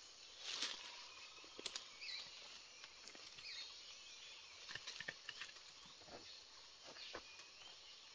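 Faint outdoor farmyard ambience: scattered soft rustles and clicks, with a few faint bird chirps.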